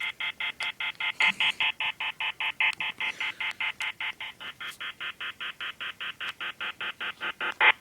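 Telephone beeping rapidly and evenly, about six short electronic tone beeps a second in an unbroken run, like keypad dialing tones.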